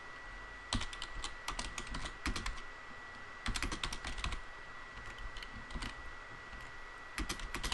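Typing on a computer keyboard: runs of quick keystrokes broken by short pauses, with a longer pause about two and a half seconds in.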